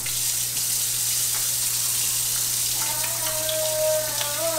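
Kitchen tap running into the sink as a child washes his hands, a steady splashing rush that starts abruptly. A voice holds a high note near the end.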